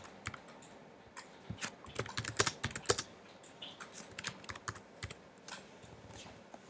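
Typing on a computer keyboard: irregular runs of key clicks with short pauses, as a few short words are typed into a web form.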